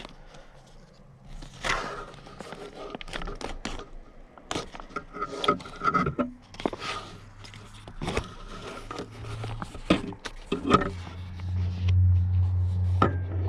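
Foil boil-in-the-bag ration pouch being handled and torn open by hand, a run of crinkles, rustles and scrapes. A steady low hum comes in after about eleven seconds and is the loudest sound near the end.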